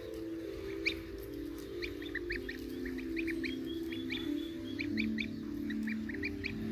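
Goslings peeping in short high calls, several a second, over background music of long held low notes.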